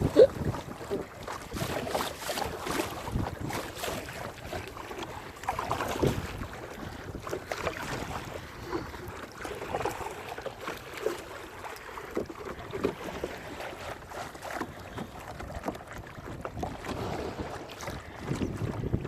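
Kayak paddle strokes dipping and splashing in the water at an uneven rhythm, with wind buffeting the microphone.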